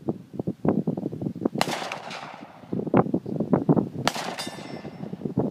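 Two 9mm pistol shots from a Smith & Wesson SD9VE, about two and a half seconds apart, each with a trailing echo. Wind buffets the microphone throughout.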